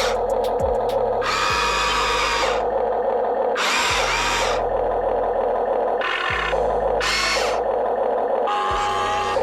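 Electric motors and gearboxes of a Huina 1592 1/14-scale RC excavator whirring in about five short bursts as its functions are worked, over a steady hum.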